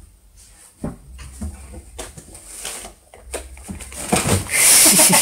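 Light knocks and scuffles as a baby pig-tailed macaque clambers about a wooden bed headboard, then a loud rustle near the end as it leaps down into the mosquito net.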